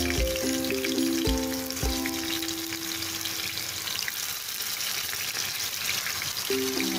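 Sweet potato wedges deep-frying in hot oil with brown sugar melting into caramel around them: a steady crackling sizzle.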